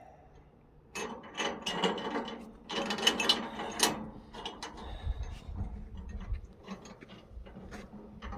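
Metal ratchet mechanism clicking and rattling as it is worked on the sawmill's cable lift, in two busy runs from about a second in, then lighter scattered clicks.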